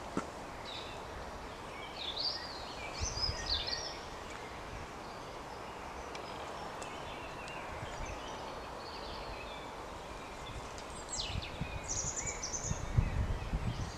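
Songbirds singing in short warbling and chirping phrases over a steady background hiss, with a few soft low knocks and rustles toward the end.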